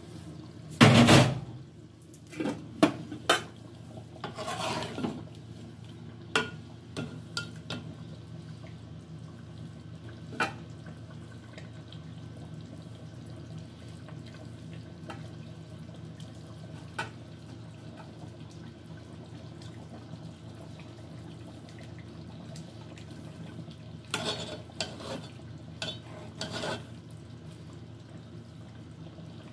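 A metal ladle and lids clanking against large metal cooking pots of rice and curry. A loud clatter comes about a second in, a few sharp clinks follow, then single clinks spaced out, and a cluster of clanks near the end, over a steady low hum.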